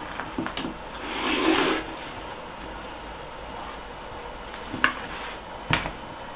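Rotary cutter rolling through layered cotton patchwork against a cutting mat: one rasping cut lasting about a second, starting about a second in. A few sharp clicks and knocks come before it and about five to six seconds in, the sharpest near five seconds.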